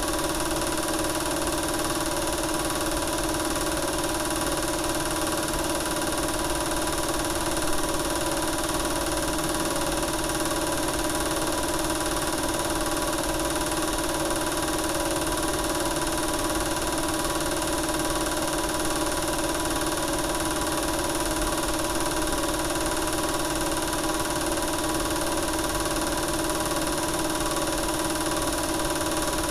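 Home-movie film projector running: a steady motor hum and mechanical whir.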